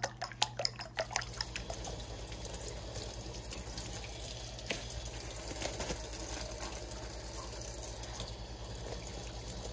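A fork clicking quickly against a bowl as eggs are whisked, giving way about a second in to a kitchen faucet running steadily into a stainless steel sink as fish fillets are rinsed under the stream.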